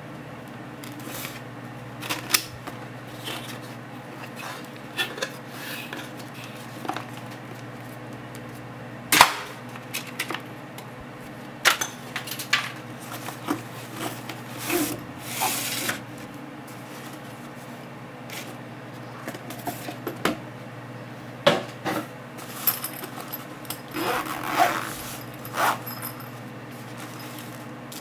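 Cardboard lens packaging and paper cards being handled: irregular rustling, sliding and light knocks. A padded lens case is handled near the end, its zipper pull being worked. A steady low hum runs underneath.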